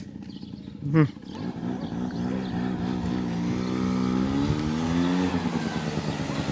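Small ATV's engine approaching and getting steadily louder, its pitch climbing under acceleration and then dropping back near the end as the throttle eases. A short loud shout-like call about a second in.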